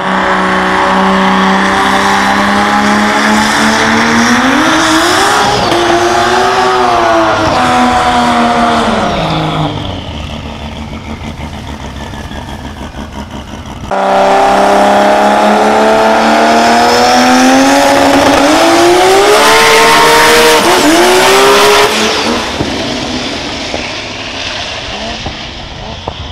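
A drag-built Nissan R32 Skyline GT-R's RB straight-six is held at steady revs on the start line, then revs up and drops away. After a cut it is held steady on the line again, then launches with the pitch climbing, a brief dip at a gear change, and it falls off sharply as the car runs away down the strip.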